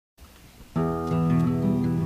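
Acoustic guitar music starting about three-quarters of a second in, plucked and strummed chords.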